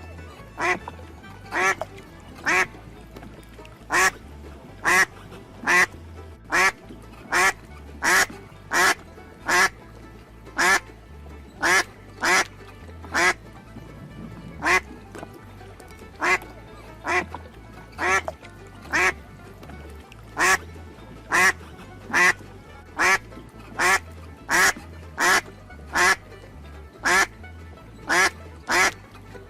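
Duck quacking over and over in single short quacks, a little faster than one a second with uneven gaps, over soft background music.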